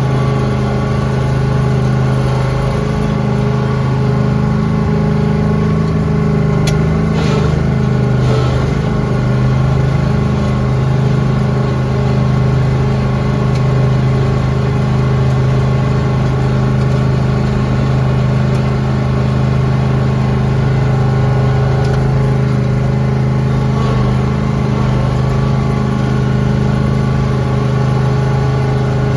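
Lawn tractor engine running steadily at a constant speed, with one brief click about seven seconds in.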